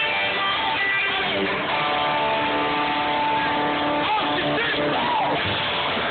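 Live music with a strummed guitar, played loud and steady.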